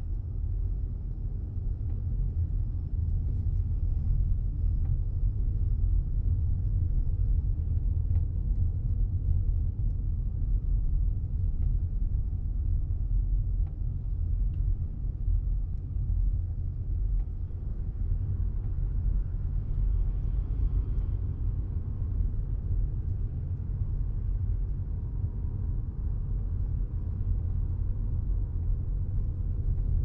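Steady low rumble of road and drivetrain noise heard inside the cabin of a 210-series Toyota Crown Athlete hybrid while driving.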